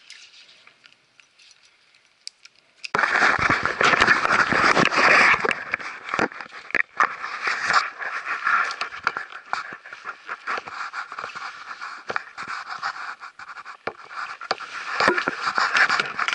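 Quiet for about three seconds, then loud rustling and scraping of jacket fabric rubbing over the action camera's microphone, with scattered knocks and clicks from handling the camera as the wearer moves.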